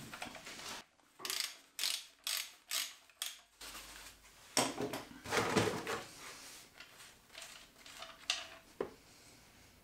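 Ratchet wrench clicking through five quick strokes, then a few metallic scrapes and clinks.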